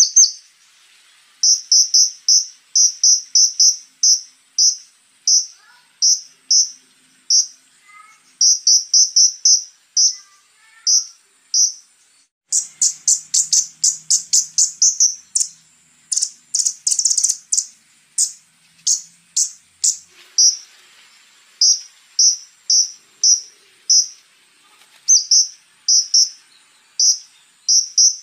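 Scarlet-backed flowerpecker (konin) calling: runs of short, sharp, high ticking notes, breaking into faster rattling runs about halfway through. A faint steady high buzz runs underneath.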